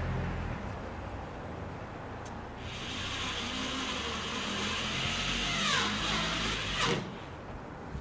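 A motor vehicle's engine hums low, then a rushing noise swells for a few seconds as the vehicle passes, with a falling sweep near its peak. It cuts off abruptly about seven seconds in.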